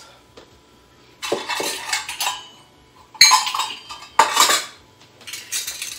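Metal kitchen utensils clattering as they are rummaged through in search of small metal funnels. Quiet for about the first second, then several bursts of clinking and clanking, the loudest about halfway through.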